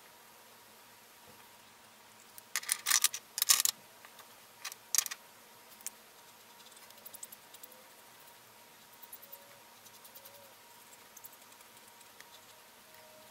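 Plastic marker pens clattering and clicking as one marker is set down and another picked up and uncapped, in a quick cluster of sharp clicks with one more click about a second later. Then faint light ticks of the brush-tip marker working on the paper.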